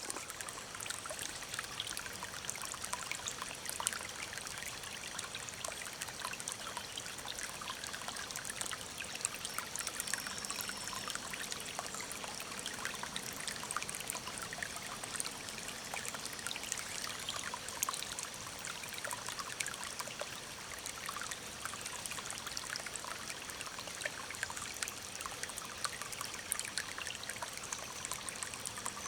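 Small stream trickling and splashing over stones in a steady, even rush, dotted with quick droplet splashes.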